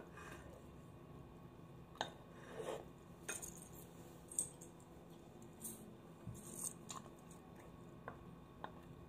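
Wooden spoon clicking and scraping against a ceramic bowl while eating: about eight light, separate clicks, with a short scrape about two and a half seconds in.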